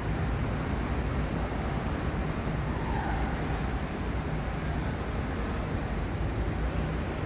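Steady low rumbling background noise with no distinct events, and a faint brief falling tone about three seconds in.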